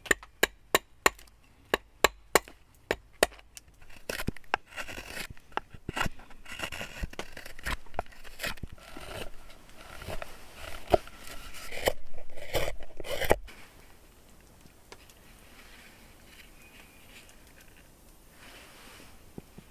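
Birch wood being hand-carved into a bowl: a run of sharp wooden taps, about three a second, then about ten seconds of scraping and shaving as a blade cuts into the wood, fading to faint scraping near the end.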